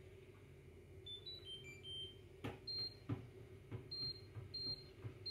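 Tumble dryer control panel: a short tune of electronic beeps at changing pitches about a second in, then button presses, each a click with a single short high beep, about one every two-thirds of a second, as the low-heat setting and drying time are selected.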